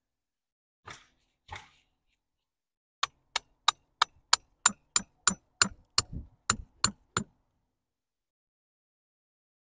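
A garden stake being hammered into the soil: about fourteen sharp, even blows, roughly three a second, which stop abruptly.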